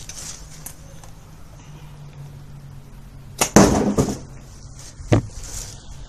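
A sling-bow shot: a slingshot fitted with an arrow rest looses a 22-inch carbon crossbow bolt with a sudden loud release about three and a half seconds in, lasting about half a second. A single sharp knock follows about a second and a half later.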